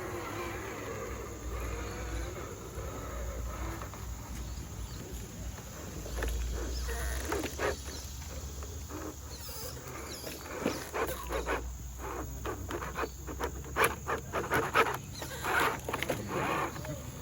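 Steady high chirring of insects, like crickets, throughout. From about ten seconds in it is overlaid by a run of irregular sharp knocks and clatters.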